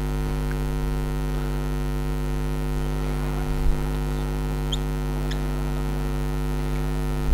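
Steady electrical mains hum with several even overtones on the recording. About two-thirds of the way in come a couple of brief faint squeaks from a marker dotting the whiteboard.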